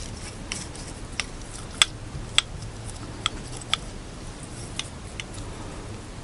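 Light, sharp metallic clicks at irregular intervals, about eight of them, the loudest two a little after two seconds in. They come from a removed Chevrolet Cruze piston being handled, its compression ring worked in its groove to check that it moves freely despite heavy carbon between the rings.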